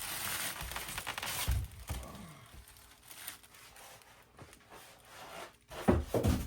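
Foam packing and plastic being handled and pulled in the compressor's box: scratchy rustling, loudest in the first couple of seconds, then fainter scattered handling noises.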